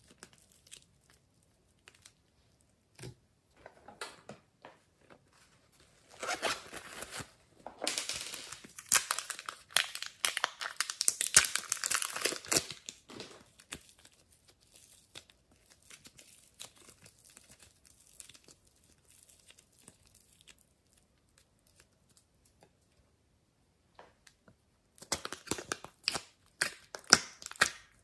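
Soft modelling clay squeezed and pulled apart by hand, crackling and tearing in irregular bursts with quiet pauses between. It is loudest from about six to thirteen seconds in and again near the end.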